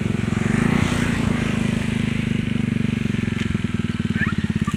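A small engine running steadily, an even, fast chugging of about a dozen beats a second that stands out more clearly near the end.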